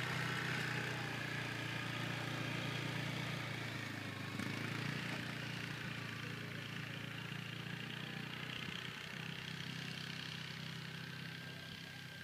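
Quad bike (ATV) engine running steadily, growing fainter as it moves away.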